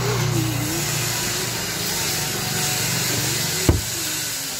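Scraping and rubbing in an open chest freezer while ice cream or falooda is taken out, then the freezer lid shuts with a single sharp thump near the end, over a steady background hiss and hum.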